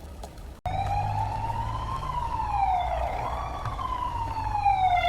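Ambulance siren wailing, its pitch slowly rising and falling, over a low engine rumble. It starts suddenly about half a second in.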